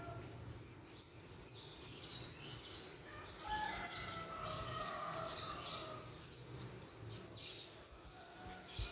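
Birds chirping and calling, several short calls overlapping, busier and louder from about three and a half seconds in, over a low steady background rumble.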